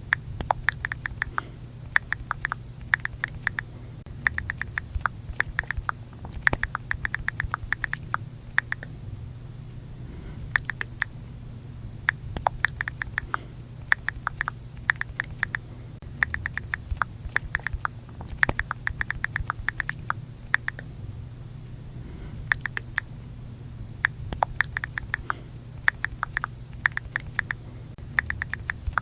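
iPhone keyboard click sounds from typing on the touchscreen: quick runs of sharp clicks, several per second, in bursts of a second or so with short pauses between words, over a faint low hum.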